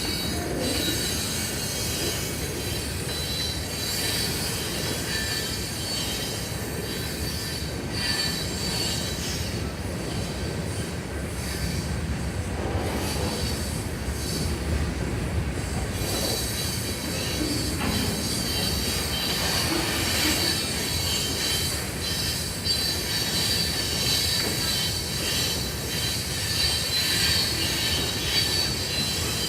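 CN freight train cars rolling past, the steel wheels squealing on the rails: a steady high-pitched squeal over a low rumble, growing stronger in the second half.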